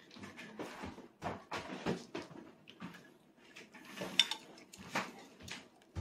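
Light clicks and knocks of dishes and cutlery on a meal table, scattered through, the sharpest a short clink about four seconds in.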